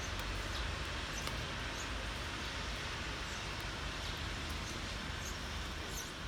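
Steady rain falling, an even hiss with scattered drops ticking sharply here and there.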